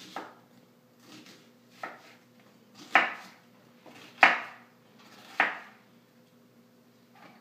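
Chef's knife slicing a red onion on a wooden cutting board: separate knife strokes knocking on the board about once a second, the loudest around the middle, then stopping near the end.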